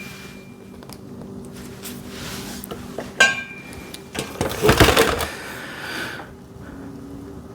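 A single ringing metal clink, then about a second later a short flurry of knocking and rattling as metal parts and the welder's fittings are handled, over a faint steady hum.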